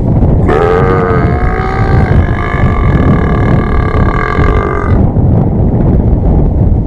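A long, loud human burp lasting about four and a half seconds, wavering in pitch at first and then held steady, used to call cows. Wind rumbles on the microphone throughout.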